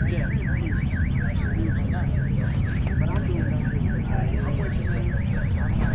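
An electronic alarm warbling rapidly up and down in pitch, about four times a second, over a steady low rumble. A brief hiss sounds about four and a half seconds in.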